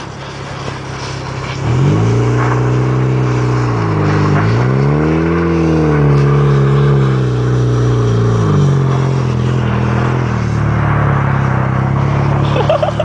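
Honda Civic engine pulling hard under acceleration, with road noise and wind underneath. It comes in loud about two seconds in. Its pitch dips and climbs again in the middle, then falls about two-thirds of the way through, as with a gear change or lifting off, and it keeps running steadily after that.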